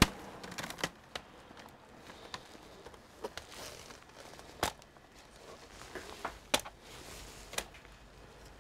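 Sharp plastic clicks and knocks as the bottom cover of a Dell Inspiron G3 3579 laptop is pried loose and lifted off, its clips letting go, with some paper rustling. The loudest snaps come about four and a half and six and a half seconds in.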